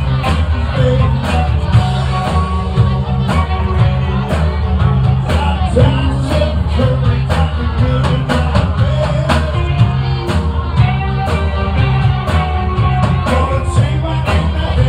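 Live rock band playing amplified in a bar room: a steady drum beat, heavy bass and electric guitar.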